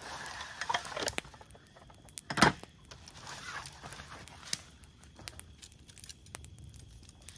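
Rustling and crinkling of something being handled, with one sharp knock about two and a half seconds in and scattered small clicks.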